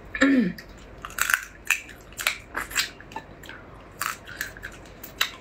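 Marinated crab shell and meat being broken apart by hand and bitten: a string of irregular, sharp wet crunches and cracks. There is a short falling vocal sound near the start.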